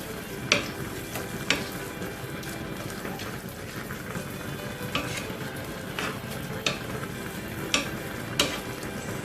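A utensil stirring a creamy shrimp carbonara sauce as it sizzles in the pan, with a sharp tap or scrape against the pan every second or so.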